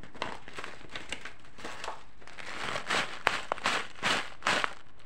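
Irregular crinkling and rustling close to the microphone, in short uneven bursts, with two sharp clicks a little past the middle.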